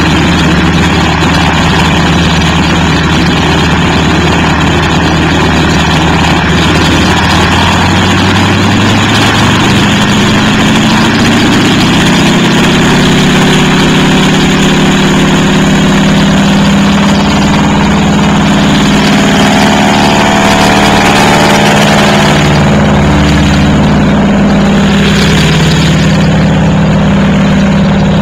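De Havilland Beaver's Pratt & Whitney R-985 nine-cylinder radial engine and propeller running on the ground. It runs steadily at first, then its speed rises about ten seconds in and holds at the higher speed.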